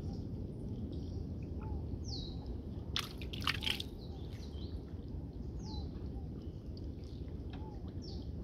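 Mangrove-swamp ambience: birds giving short, high, downward-sliding calls every few seconds, and a softer, lower call repeating about every two seconds, over a steady low rumble. A brief noisy burst of clicks and sloshing stands out about three seconds in.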